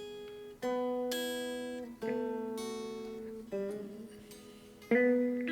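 A guitar played slowly in a short blues lick: about five plucked single notes and two-note chords, each left to ring and fade, with the last, loudest one struck near the end.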